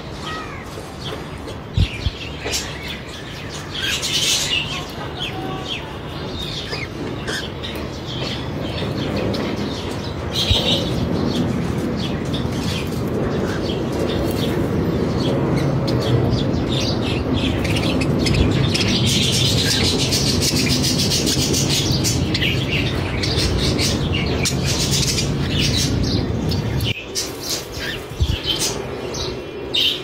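Cockatiels and other aviary birds chirping and calling, many short chirps in quick succession. A steady low rumble builds under them from about a third of the way in and cuts off suddenly near the end.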